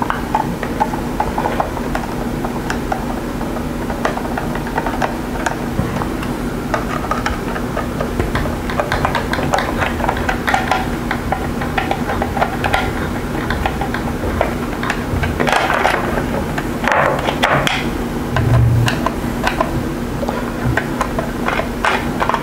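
Screwdriver turning out the screws of a variac's sheet-metal front panel: many small metal clicks, ticks and scrapes, with louder rattling of the loosened panel and casing in the second half. A steady low hum runs underneath.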